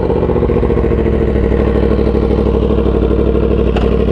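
Superbike engine idling steadily, an even pulsing beat with no revving.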